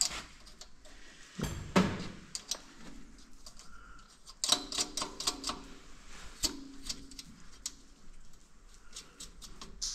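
Metal hand tools and engine parts being handled during repair work: a string of sharp clicks and clinks, with a louder knock about two seconds in and a short ringing metallic clink about halfway through.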